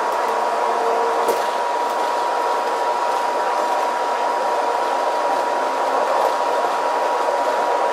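Cabin noise inside a moving Walt Disney World monorail car: a steady rushing ride noise with a constant high whine running through it.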